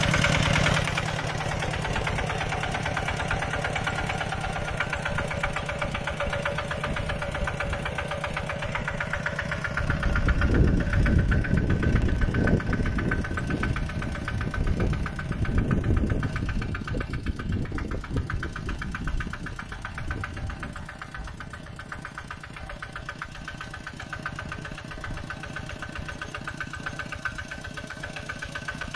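Mini tractor's engine running with a fast, even chugging beat. It grows louder and deeper for several seconds around the middle, then settles back.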